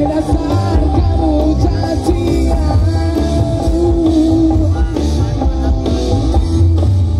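Live band playing a song through a large outdoor PA system, with heavy bass and drums under a bending melodic lead line.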